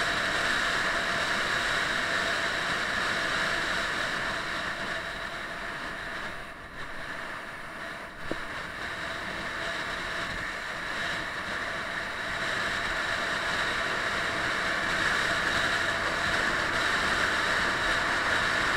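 Steady rush of wind and road noise on a camera mounted on a moving motorcycle, easing off about six seconds in with a brief tick around eight seconds, then building up again.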